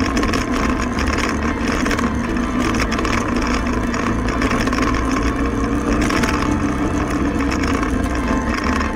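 Honda Africa Twin XRV 750's V-twin engine running steadily under way on a sandy forest track, heard from the bike itself.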